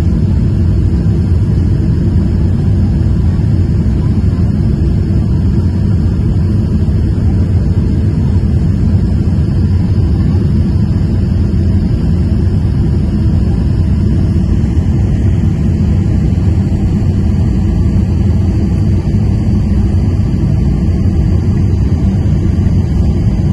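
Steady cabin noise of an airliner on approach to land, heard from a window seat by the wing: a loud, even low rush of engines and airflow. Faint high-pitched tones sit above it and shift slightly about two thirds of the way through.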